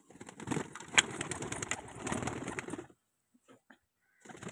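Fancy pigeons cooing, with a sharp click about a second in. The sound cuts off abruptly about three seconds in.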